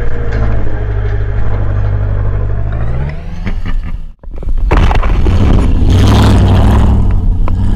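Engine of an off-road 4x4 vehicle running hard at low revs, then revving up about three seconds in. It breaks off briefly about four seconds in and comes back loud and steady.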